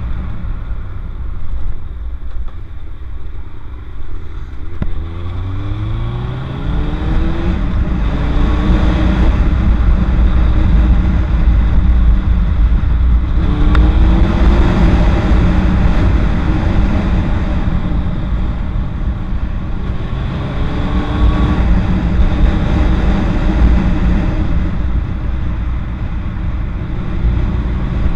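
Kawasaki Ninja sport motorcycle engine pulling up in pitch as it accelerates, several times, with breaks between pulls as it shifts up. Under it, heavy wind rumble on the microphone.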